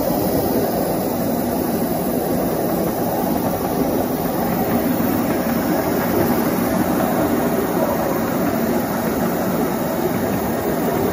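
10.25-inch gauge miniature electric locomotive, driven by two 10 kW electric motors, running steadily along the track: a continuous rumble of its wheels on the rails.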